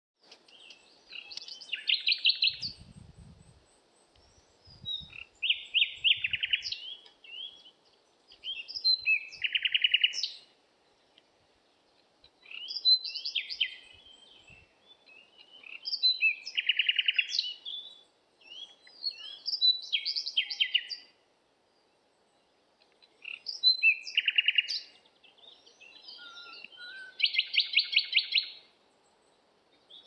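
A songbird singing: about eight short phrases, each a couple of seconds long with a fast, buzzy trill in it, separated by brief pauses.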